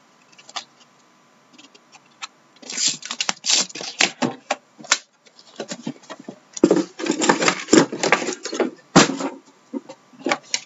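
Cardboard trading-card box being opened by hand: paper and cardboard rustling and scraping as the outer box is lifted off and the inner box drawn out, with several sharp knocks as the boxes are set down and handled.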